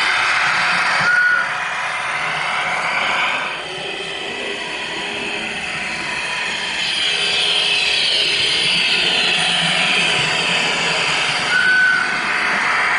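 H0-scale model train, an SBB Bde 4/4 railcar, running along the layout's track with a steady rolling and motor noise, and two short high tones about a second in and near the end.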